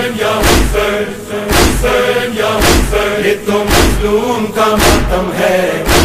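Muharram mourning chant sung by men's voices over a steady beat of thuds about once a second, keeping time with the chant.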